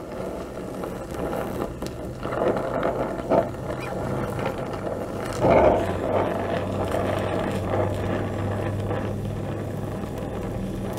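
Oxy-fuel gas torch flame hissing steadily as it heats a broken bolt toward cherry red, to break loose the corrosion holding it. There is a louder swell about five and a half seconds in.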